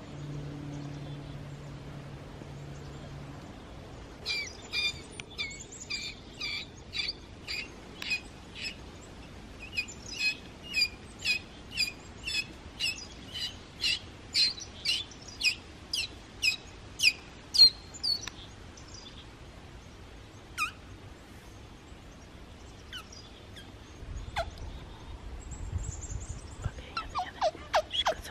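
A wild animal calling in a long run of sharp, high chirps, about two a second, for some fourteen seconds, then a few scattered chirps and a new, quicker run near the end.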